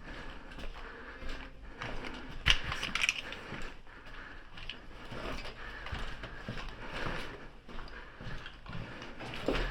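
Shuffling footsteps and rattling gear of an airsoft player on the move, with scattered clicks and knocks. The loudest is a sharp knock about two and a half seconds in.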